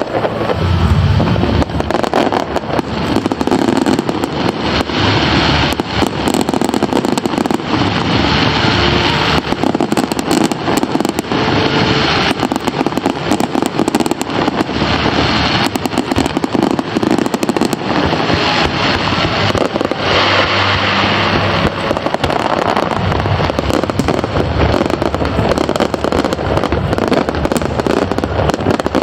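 Aerial fireworks bursting in a rapid, unbroken barrage of booms and crackle. Several stretches of a second or two carry a loud hissing crackle over the booms.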